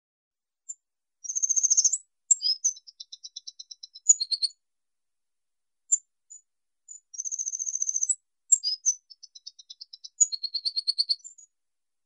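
Oriole finch (Linurgus olivaceus) singing two high phrases, starting about a second in and again past halfway. Each opens with a rapid trill and runs into a jumble of short twittering notes.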